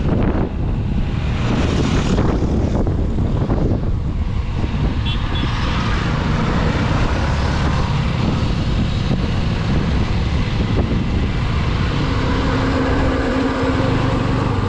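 TVS Apache RTR 160 4V motorcycle's single-cylinder engine running on the move, with wind rushing over the microphone. About twelve seconds in, a steady engine hum stands out more clearly.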